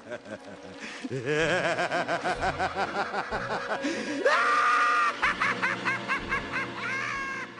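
An evil, cackling laugh sound effect: quick repeated 'ha' pulses that sweep up in pitch about four seconds in to a held high peak, then break into short choppy laughs.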